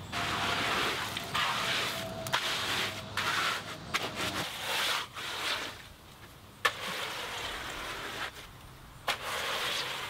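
Rough, repeated scraping strokes of hand tools working wet concrete: a shovel pushing and spreading the mix, then a hand trowel sweeping across the surface, with a few sharp knocks in between.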